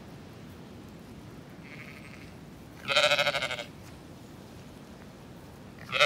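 Zwartbles sheep bleating: a faint call about two seconds in, then two loud, quavering bleats, one around three seconds in and one at the very end.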